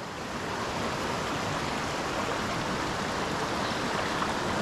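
River water rushing over rocks in a small rapid, a steady, even rush that swells slightly at the start.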